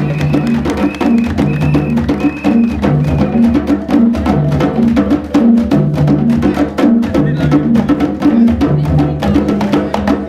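Gambian music with fast, busy struck percussion over a repeating low bass figure. A short high tone repeats through the first three seconds or so and then drops out.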